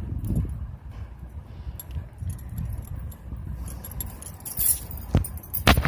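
Plastic basket wires rubbing and clicking against each other as they are pulled and knotted by hand, with two sharper clicks near the end.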